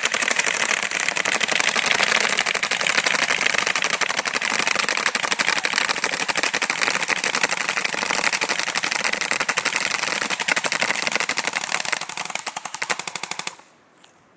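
Four airsoft guns firing full auto together into a pizza box: a dense, continuous rattle of rapid shots that thins out and stops near the end.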